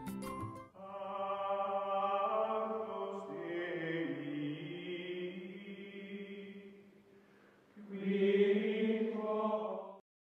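Outro music of long, held chanted voices layered like a choir, in two phrases: the first fades out about seven seconds in, the second swells in about a second later and cuts off suddenly near the end.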